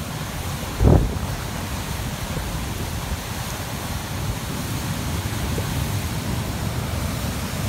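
Rushing river water churning over rocks, a steady hiss, with wind buffeting the microphone. A single thump about a second in.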